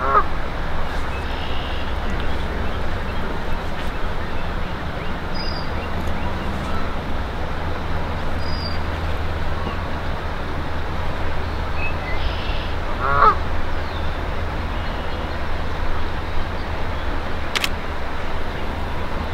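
Outdoor background: a steady low rumble and hiss, with a few short bird calls, the clearest about two-thirds of the way through. One sharp click comes near the end.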